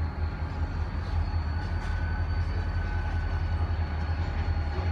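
Freight train rolling by with a steady low rumble.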